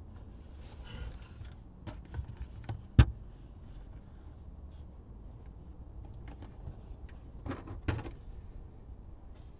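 A Captain Stag metal-framed folding table being unfolded by hand: small clicks and rattles of its catches and legs, one sharp knock about three seconds in, and a couple of knocks near the end as the top is turned over and set down.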